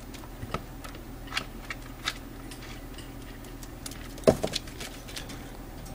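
Ferret hiccuping: a run of small, sharp hic sounds at irregular spacing, roughly one every half second to second, the loudest about four seconds in.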